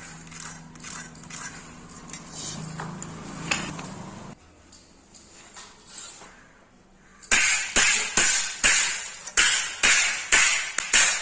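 Light scattered knocks and clinks over a faint low hum, then from about seven seconds in a steady run of hammer blows on wood, about two to three a second and the loudest sound.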